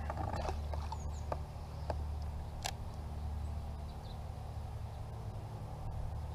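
Outdoor river ambience: a steady low rumble with scattered light clicks and a few faint, high bird chirps.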